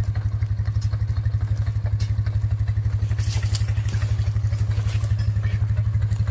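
ATV engine running steadily at low revs, an even low throb, with a little faint clatter about three seconds in.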